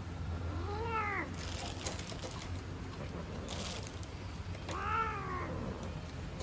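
Cats mating: a cat yowls twice, each call under a second long and rising then falling in pitch, about four seconds apart. Brief rustles come between the calls.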